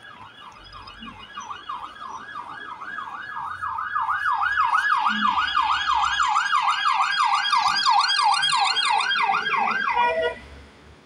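Police car siren in a fast yelp, its pitch sweeping up and down about three times a second, growing louder as the car approaches, then cutting off about ten seconds in.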